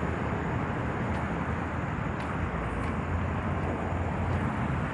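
Steady road traffic noise: a continuous low rumble with a hiss above it.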